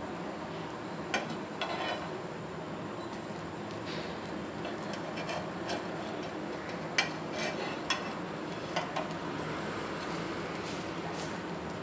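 Metal spatula scraping and tapping against a non-stick dosa tawa while a thin neer dosa is lifted and folded, giving a few short clicks and knocks over a steady low background.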